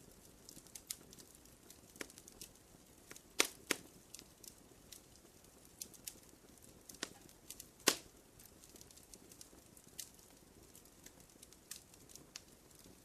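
Campfire crackling: scattered sharp pops and snaps of burning wood at an uneven pace over a faint low rush of flame, with a few louder pops about three and a half and eight seconds in.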